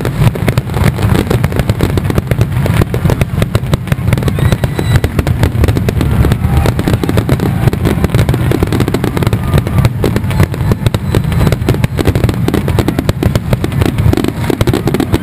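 Aerial fireworks display going off in a dense, continuous barrage: rapid overlapping bangs and crackling over a heavy low rumble, with no let-up.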